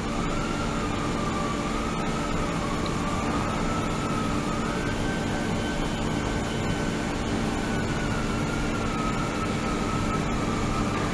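Ultrasonic cleaning tank running: a steady hiss and hum, with a high tone that slowly wavers up and down in pitch.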